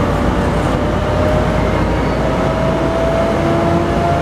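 Tri-Rail diesel locomotive and bilevel coaches moving past along the platform track, the engine running loudly under a single whine that rises slowly in pitch.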